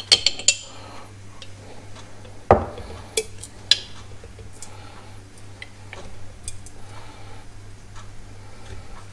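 A spoon clinking and scraping in a glass honey jar. There are a few sharp clicks at the start, a heavier knock about two and a half seconds in, two more clicks soon after, then scattered light taps.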